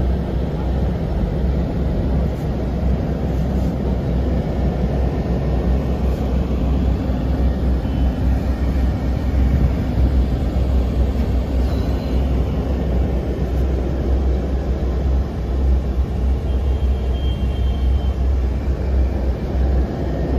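Steady low rumble of a sleeper bus on the move, heard from inside the passenger cabin: engine and road noise without a break.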